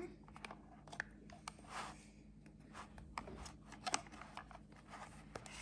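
Faint handling noise: scattered small clicks and brief rubbing and rustling as hands work the plastic parts of a cake-pop kit.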